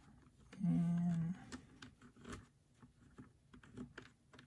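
Light scattered clicks and taps of a Tamiya TT-02 plastic spur gear and gearbox being handled and turned while grease goes on. Just under a second in, a man hums a short 'mm', the loudest sound.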